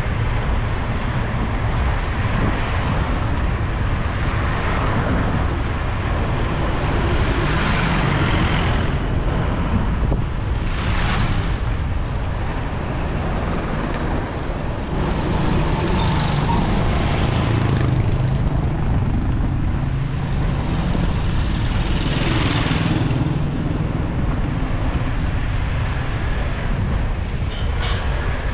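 Road traffic, with several vehicles passing one after another over a steady rumble of wind on the microphone while riding.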